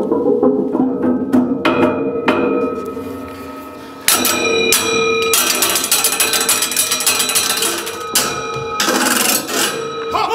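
Tuned metal tubes of a large percussion instrument struck with mallets: a quick run of strikes that fades, then loud full strikes about four and eight seconds in whose metallic tones ring on for several seconds, the closing chords of the piece.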